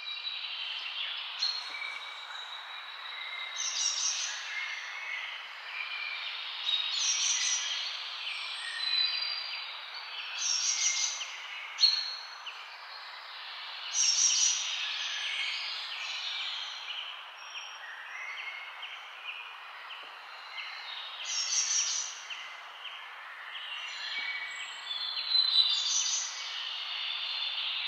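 Songbirds singing and calling, with fuller song phrases every few seconds, over a steady background hiss. A single sharp tick a little before halfway.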